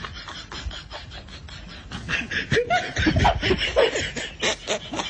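A person laughing in short snickering bursts, starting about two seconds in, with scattered light clicks.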